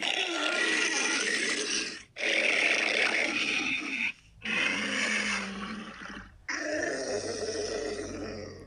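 Four harsh monster roars of about two seconds each, in close succession: custom-made Godzilla Millennium-style roar sound effects.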